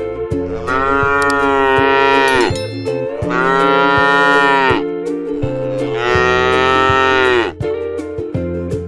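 Cow mooing three times in long, drawn-out calls, each falling in pitch as it ends, over background music.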